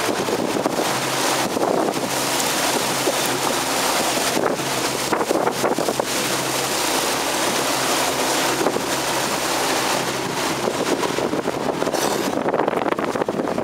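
Small boat's outboard motor running steadily under way, with a low steady hum beneath heavy wind buffeting on the microphone and water rushing past the hull. The high hiss eases about twelve seconds in.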